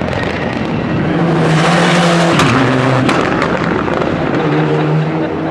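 Rally car engine running hard through a tarmac corner. Its note drops sharply about two and a half seconds in, then picks up again, with a few sharp cracks along the way.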